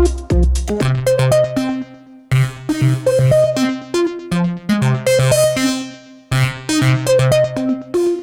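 IK Multimedia UNO Synth Pro analog synthesizer playing a bright, repeating melodic phrase over a pulsing bass line. The phrase restarts about every four seconds, with brief breaks about two and six seconds in.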